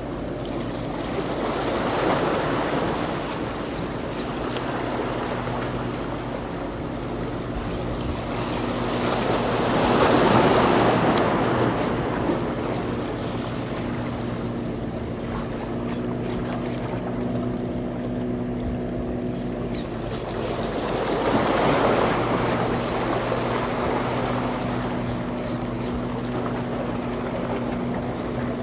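Sea waves washing against a concrete-block breakwater, swelling up three times about ten seconds apart, over a steady low hum.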